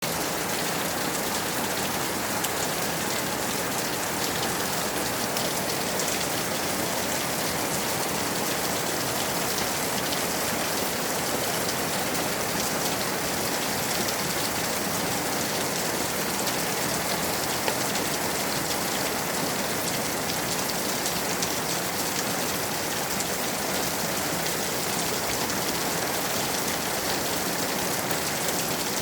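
Steady rain falling on surfaces: an even hiss of rain with many small drop ticks, unchanging throughout.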